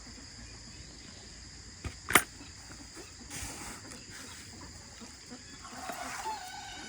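Farmyard ambience: a steady high chirring of insects, with faint poultry calls and a single sharp click about two seconds in.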